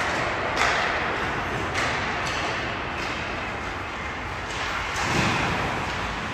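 Ice hockey on a rink: a series of sudden scrapes and knocks of skate blades, sticks and pucks, each dying away in the arena's echo, over a steady rink hum.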